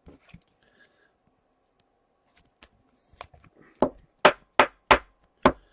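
Five sharp knocks in quick succession in the second half, from trading cards being tapped and set down on a tabletop while a pack is sorted, with a few faint card-handling ticks before them.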